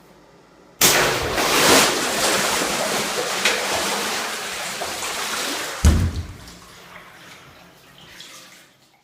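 A giant latex water balloon bursts about a second in, and a loud rush of water gushes and sloshes out for about five seconds. A heavy thud comes near six seconds, then the water noise fades away.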